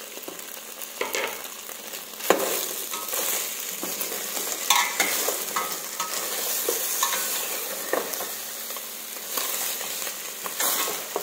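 Chunks of meat and sliced onion sizzling as they fry in their own rendered fat in an enamel pot, the cooking juices having boiled off. A plastic spoon stirs and scrapes the pieces, with sharp knocks against the pot now and then.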